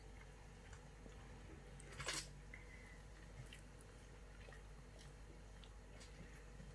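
Faint wet chewing and small clicks of a cat eating a piece of boiled meat, with one short, louder noisy burst about two seconds in.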